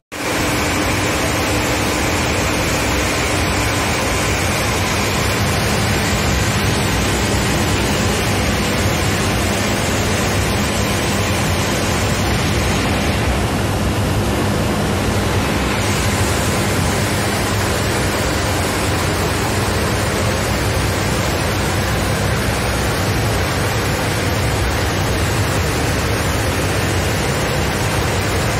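Water from a pipe gushing strongly down a concrete channel: a steady, loud rush of running water close to the microphone.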